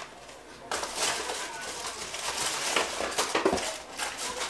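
Packaging rustling and crinkling with small knocks and clicks as a parcel is opened and its contents handled, starting under a second in and easing off near the end.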